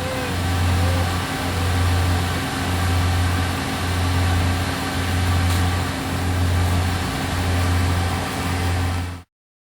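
Corn harvester's engine running steadily with a deep hum that swells and dips about once a second. It cuts off suddenly near the end.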